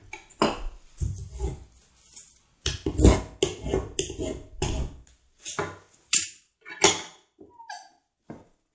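A hand tool worked in short strokes across a wooden Windsor chair seat blank, about one or two rasping strokes a second, with a couple of sharper knocks near the end.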